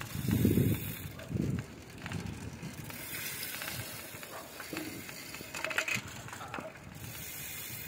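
A bicycle rolls along a rough, uneven lane: low bumps in the first second and a half, then steady rolling noise, with a few rattles about six seconds in.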